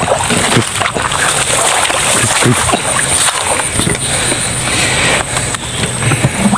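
Rustling grass and handling knocks as a PVC-pipe eel trap is pulled up out of a flooded hole in the mud, with water sloshing in and out of the pipe.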